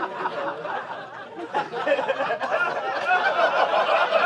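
Comedy club audience laughing and chuckling, the laughter swelling and getting louder from about a second and a half in.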